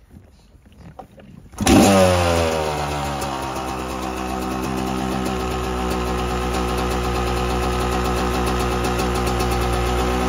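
A 1990 Kawasaki KX250's two-stroke single-cylinder engine fires up on a cold start about a second and a half in. Its revs fall quickly, then it settles into a steady idle.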